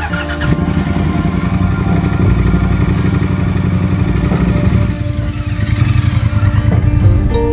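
Triumph Bonneville T120's 1200 cc parallel-twin engine running with a low, rapid throb that starts abruptly; its note shifts about five seconds in.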